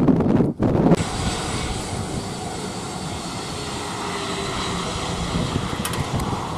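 Wind buffeting the microphone for about a second, then the steady rushing noise of an airliner's engines with a faint high whine.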